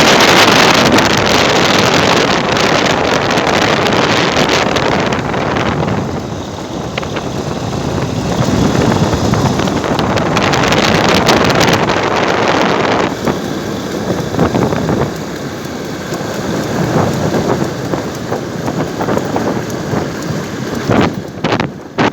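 Loud rushing wind noise on the microphone, swelling and easing in waves, with a few short knocks near the end.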